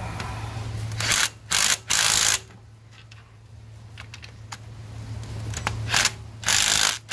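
Cordless electric impact tool driving a new spark plug into the cylinder head through a long extension socket. The motor whirs and the hammer rattles in short bursts as the plug seats: three bursts about a second in, then two more near the end.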